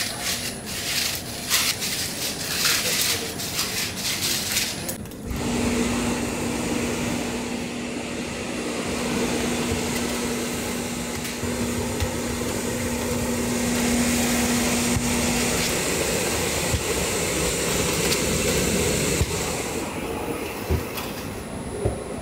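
Snack-factory machinery: a quick run of clattering clicks for about five seconds, then a steady machine drone with a held hum that stops about ten seconds later, and a bright hiss that dies away near the end.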